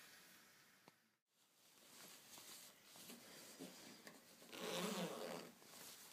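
Faint rustling of cotton skirt fabric being handled, then about four and a half seconds in a zip is pulled along for about a second.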